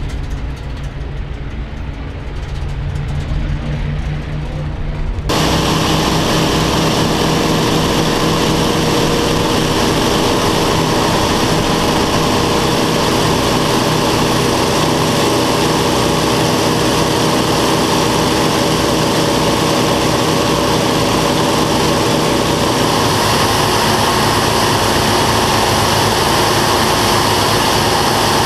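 Twin radial engines of a Grumman F7F Tigercat running on the runway, heard from outside as a low steady drone. About five seconds in, the sound cuts suddenly to the louder, steady engine and airflow drone inside the cockpit in flight.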